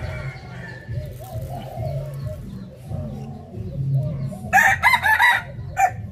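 A rooster crows loudly in short broken phrases about four and a half seconds in, with a brief call just after. Chickens cluck in the background throughout.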